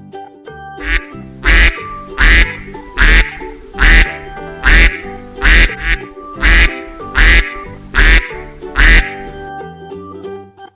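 A duck quacking about ten times in a steady series, each quack loud and short, over background music.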